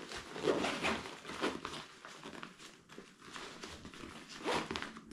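Number 10 nylon zips on a Highlander Ben Nevis 85L rucksack being worked back and forth by hand, with the pack's nylon fabric rustling. The sounds come in short, irregular bursts.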